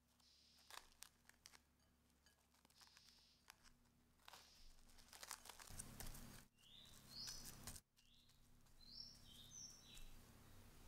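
Faint crinkling and rustling of plastic cling film as it is pulled over a glass bowl and pressed down by hand, over a low steady hum. A few high chirps, like a small bird's, come in the second half.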